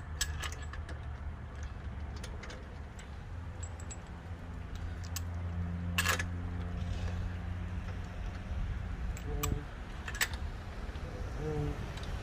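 Steel lug bolts being threaded by hand into an alloy wheel: light metallic clicks and clinks, with a sharper click about six seconds in and another near ten seconds. A low rumble runs underneath and swells in the middle.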